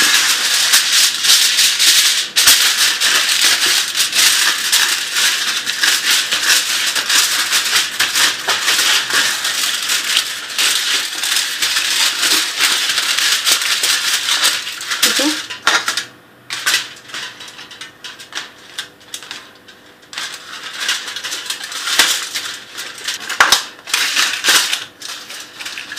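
Aluminium foil crinkling and crackling as it is pressed and smoothed into a round cake pan by hand. It is dense and continuous at first, then thins to scattered crinkles after about 15 seconds.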